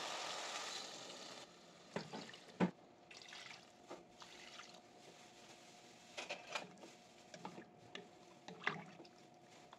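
Pork and tomatoes sizzling in a hot pot, cutting off about a second and a half in. Then water is poured into the pot over the meat, with a few sharp knocks and clinks against the pot.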